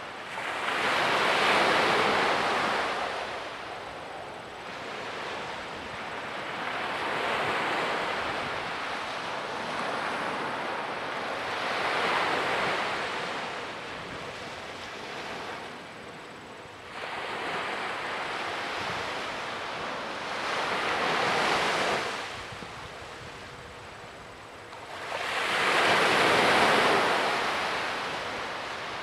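Small waves breaking and washing up a sandy beach, the surf swelling and easing about five times, with the first and last washes the loudest.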